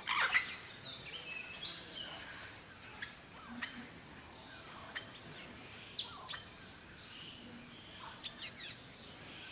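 Goldfinch calling: scattered short chirps and twittering notes, the loudest cluster about a second in, over a faint steady hiss from the field recording.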